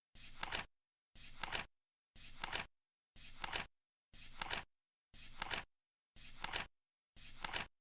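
Flip clock's seconds leaf turning over once a second, eight times: each flip a brief rustle ending in a sharp clack, ticking off the seconds of the timer.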